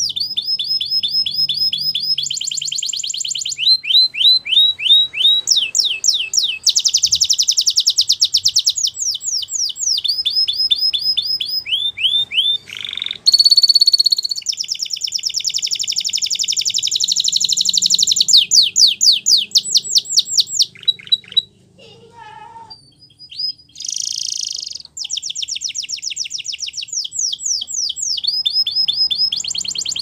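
Spanish Timbrado canary singing: a long run of rapid trills, each a fast string of repeated high notes, switching to a new trill every second or two. There is a brief pause a little over two-thirds of the way through before the song picks up again.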